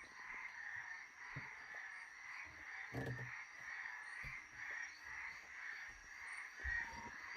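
Frog chorus calling in the African night, a steady pulsing trill a few pulses a second, with a faint high steady insect-like whine and a couple of low knocks about three seconds in.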